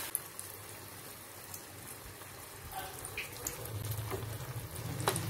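Vegetable spring rolls deep-frying in hot oil in a kadai: a soft, steady bubbling sizzle with fine crackles. Near the end a metal slotted spoon knocks once against the pan as the rolls are turned.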